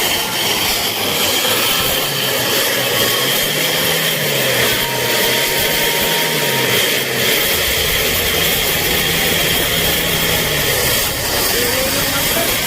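A 2018 Mitsubishi L300 van's diesel engine being revved up and down again and again, loud. It is being run hard to clear carbon after an engine-cleaning additive was put in, the van having been caught smoke belching.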